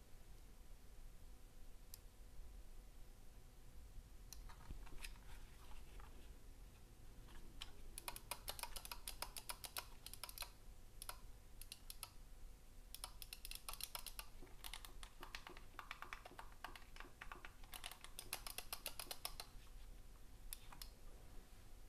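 Razer Basilisk V3 gaming mouse clicking as it is handled: single clicks at first, then several fast runs of rapid clicks from its buttons being pressed.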